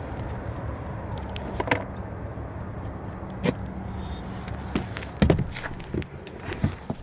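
Handling of a car's rear door: a handful of sharp knocks and clicks spread over several seconds, over a steady low rumble.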